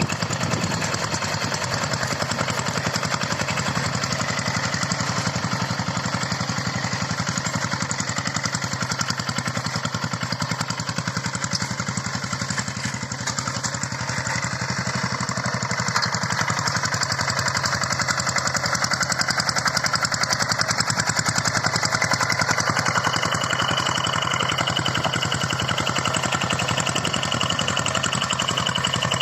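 Two-wheel hand tractor's single-cylinder diesel engine running steadily while ploughing. A thin, steady high tone joins in about three-quarters of the way through.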